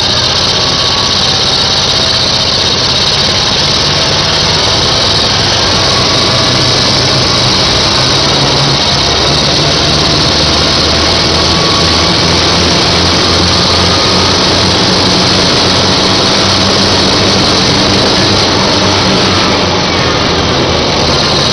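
Tank engine running loud and steady as the vehicle drives, picked up from on top of its engine deck.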